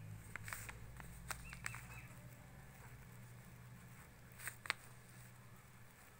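Faint handling noise from a phone and a paper map being moved on a table: scattered small clicks and light taps, the sharpest pair about four and a half seconds in, over a low steady hum.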